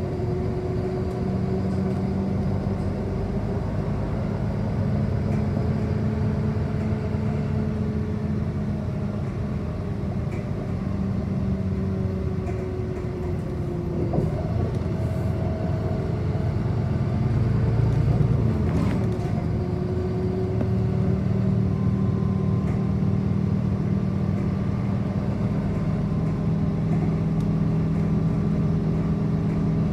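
City bus driving, heard from inside the passenger cabin: a steady drivetrain hum whose pitch dips and climbs again about 14 seconds in, growing louder for a moment around 18 seconds in.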